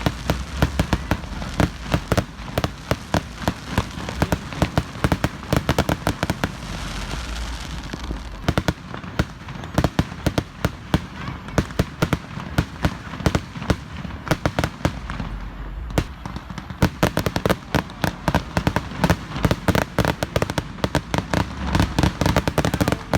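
Fireworks going off in a dense, rapid barrage of bangs and crackling pops, thinning briefly about two-thirds of the way through before picking up again.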